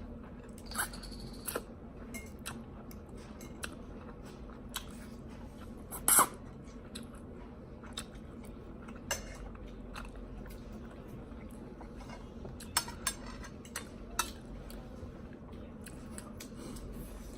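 Eating sounds: chewing, with scattered clicks and clinks of utensils on dishes, the loudest about six seconds in, over a steady low hum.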